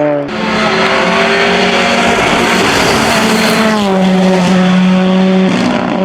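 Race car engine running hard at high revs. Its pitch holds nearly steady, then drops in a step about four seconds in.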